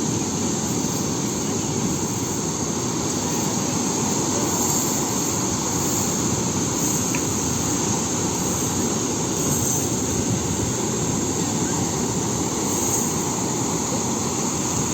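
Sea waves breaking in a steady, continuous roar.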